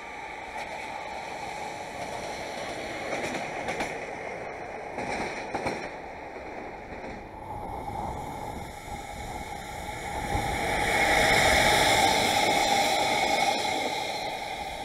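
JR Freight EF210 electric locomotive passing with two chiki flatcars loaded with rails: steady wheel-on-rail running noise that swells about ten seconds in, is loudest around eleven to thirteen seconds, then fades. Before that comes softer, steady rail-yard noise with a few short knocks.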